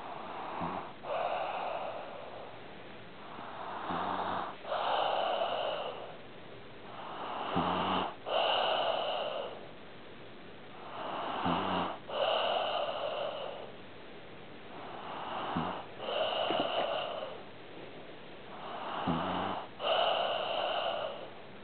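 A sleeping pet snoring in a slow, regular rhythm of about one breath every four seconds. Each breath opens with a short low snort, followed by a longer raspy breath with a thin high whistle in it.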